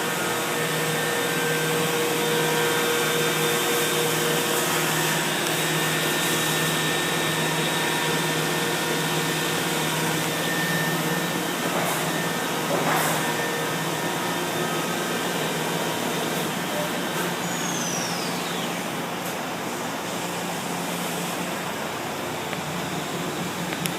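Mazak CNC milling machine running while milling copper: a steady whirring noise with several steady whining tones underneath. Two sharp clicks come about halfway through, and a short falling whistle about three quarters of the way in.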